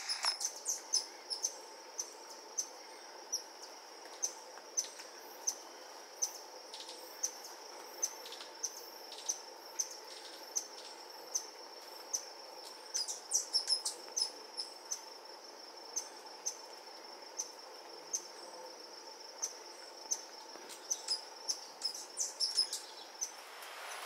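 Tropical forest ambience: a steady high-pitched insect drone with a fainter lower hum beneath it. Over it come short sharp chips every second or so, bunched into quick runs about halfway through and again near the end.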